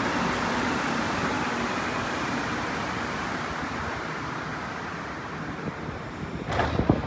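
Rubber-tired Azur metro train running into the station alongside the platform, its rushing noise slowly dying away as it brakes. A few sharp knocks come near the end.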